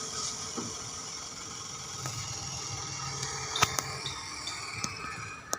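Construction machinery running steadily, with a few sharp knocks in the second half.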